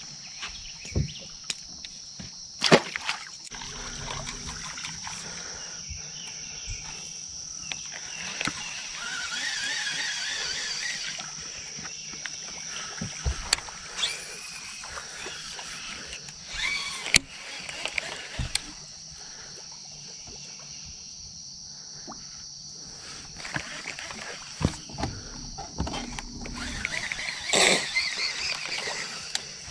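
Steady high-pitched drone of insects in the riverside vegetation, with scattered clicks and knocks from fishing tackle and the boat.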